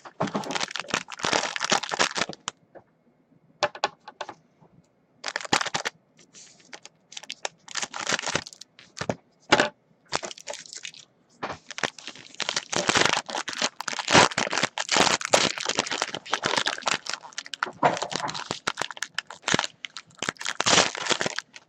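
Trading card pack wrapper and plastic packaging crinkling and crackling as they are handled and torn, in bursts that stop and start, with short pauses in the first few seconds.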